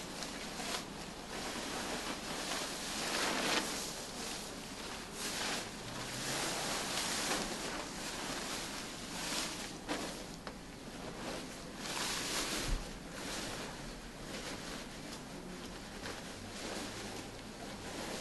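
Rustling of a disposable coverall suit being peeled off and rolled down inside out, swelling and easing in bouts, with a single dull bump about two-thirds of the way through.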